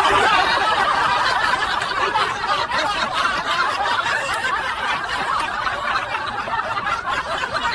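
A group of people laughing together, many overlapping laughs blending into one continuous sound.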